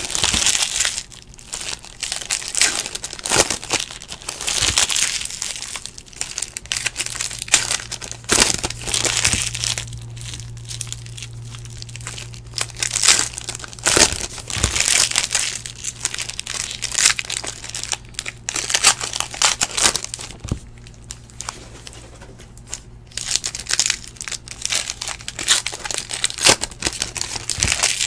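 Plastic trading-card pack wrappers crinkling and tearing in repeated irregular bursts as basketball card packs are torn open and handled.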